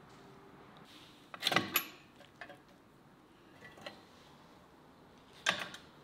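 Hinged stainless wire grill basket rattling and clinking as it is unlatched and its top grid lifted open: a loud metal rattle about one and a half seconds in, a few lighter clicks, and another sharp rattle near the end.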